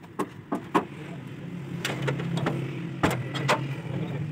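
Short sharp knocks and clinks, about eight in four seconds, from hand work on a Massey Ferguson 135 tractor's rear axle and wheel hub during disassembly, over a steady low hum.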